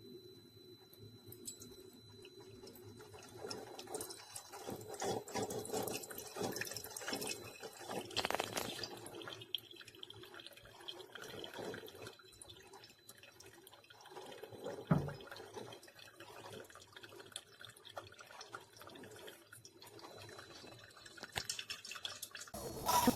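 Single-serve coffee maker brewing: hot water gurgles and spits through the brew basket and drips into the mug in irregular bursts. There is a sharp click about two-thirds of the way through, and louder sputtering near the end.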